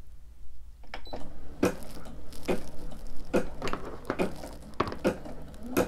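Brother SE600 embroidery machine starting up about a second in and stitching a design. A steady motor hum runs under regular clicks of the needle mechanism.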